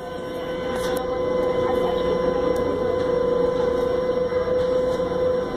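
Guadalajara light rail train's door-closing warning tone: one steady, mid-pitched tone held for several seconds over the train's rumbling noise.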